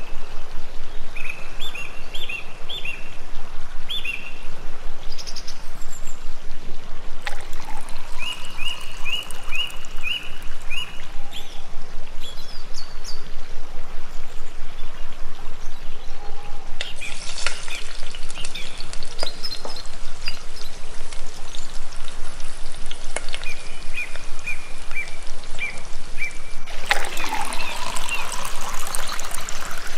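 Small birds chirping in short repeated series over a steady rush of flowing water. Near the end, water is poured from a plastic jug into a metal cooking pot.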